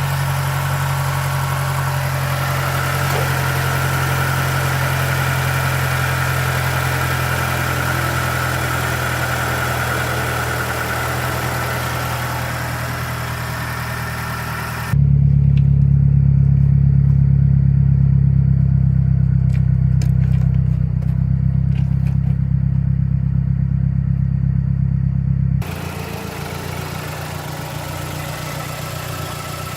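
2009 Mazdaspeed3's turbocharged 2.3-litre four-cylinder idling steadily, a little high, with no knock at idle after a fresh spark plug. About halfway through the sound turns abruptly muffled and heavier in the low end for about ten seconds, then returns to normal.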